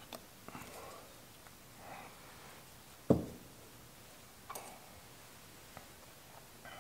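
Small clicks and faint rustles of metal carburetor parts being handled and fitted on a workbench, with one sharp knock about three seconds in.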